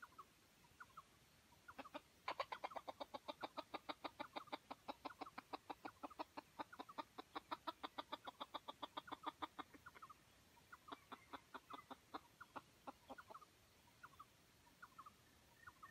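Chicken clucking in a rapid, even run of short clucks, about six a second, for roughly eight seconds, then a few scattered clucks.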